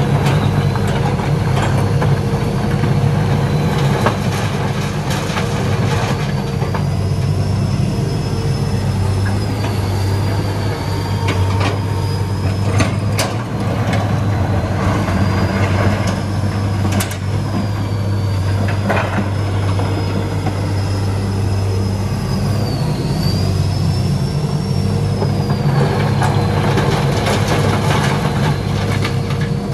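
Hitachi EX200 excavator's diesel engine running steadily under load, with a high hydraulic whine that rises and falls as the boom and arm work. Several sharp knocks and clanks sound through it.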